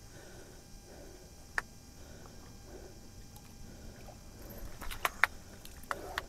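Seawater lapping and gurgling among shoreline rocks. A sharp click comes about a second and a half in, and a quick run of sharper clicks and knocks comes near the end.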